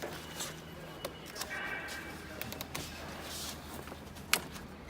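Faint handling noises from work on an upturned dishwasher's underside, with one sharp click about four seconds in.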